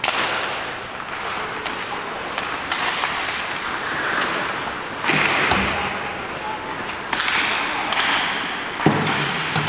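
Ice hockey play: skate blades scraping the ice and sharp clacks of sticks and puck, with louder knocks about five seconds in and again near the end.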